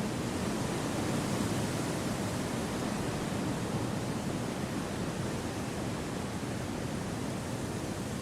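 Wind blowing through forest trees: a steady, even rush with no gusts or other events, swelling a little about a second in and then slowly easing.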